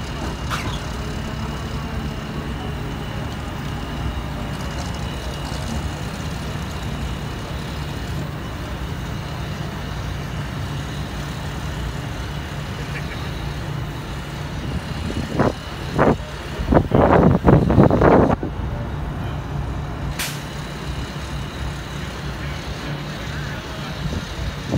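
Heavy diesel engine of a mobile crane running steadily with a low hum while it hoists a race boat. About two-thirds of the way through comes a cluster of loud bursts of rumbling noise lasting a few seconds.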